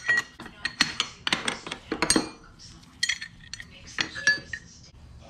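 Metal hand tools and loose bolts clinking and clanking irregularly as parts are unbolted, with a few sharp, ringing clinks, the loudest in the first half.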